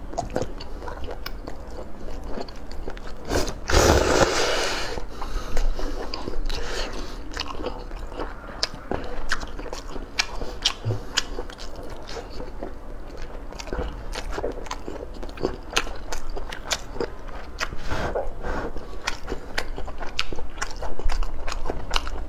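Close-up eating sounds of rice noodles in spicy broth being slurped and chewed: wet clicks and smacks throughout, with a long slurp about four seconds in and shorter ones later.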